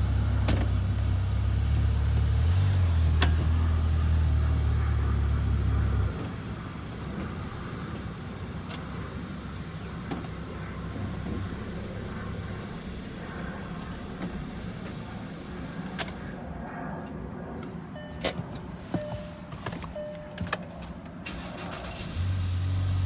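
Low, loud flutter from an MK7 Volkswagen Golf with the 1.8 TSI turbo four-cylinder and automatic transmission, the fault noise that comes on after shifting and moving off. It shifts in pitch about two and a half seconds in and stops about six seconds in. A few sharp clicks follow in the quieter stretch, and the flutter returns near the end.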